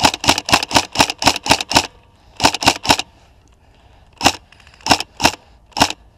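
Tokyo Marui High Cycle AUG electric airsoft rifle firing single shots, each a sharp crack. About eight come in quick succession at roughly four a second, then a group of three, then four more spaced out toward the end.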